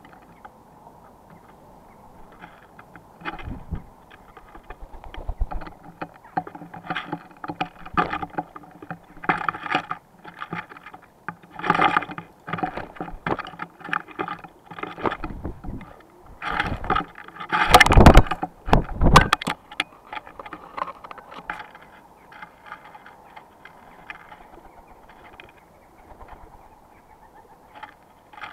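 Jackdaws and a feral pigeon pecking and scrabbling in a wooden bird-table tray of seed and peanuts close to the microphone: irregular beak taps, knocks and rustling seed, with the loudest cluster of knocks and scuffles about two-thirds of the way through.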